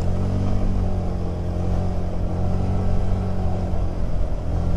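Honda Click 125 scooter's single-cylinder engine running at a steady pace while being ridden, with the drone of road and wind noise beneath it. The engine note firms up right at the start and then holds even.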